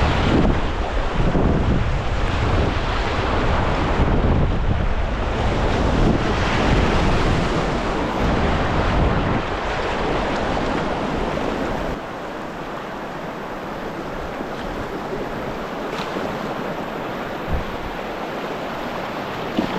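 Rushing river whitewater, a steady hiss, with wind buffeting the microphone as a low rumble for the first half before it drops away.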